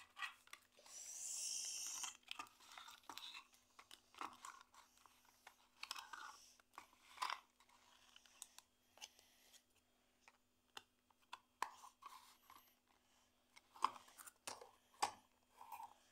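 Faint handling noises from a plastic toy remote-control car and its AA batteries being fiddled with: scattered small clicks and taps, with a brief rustle about a second in.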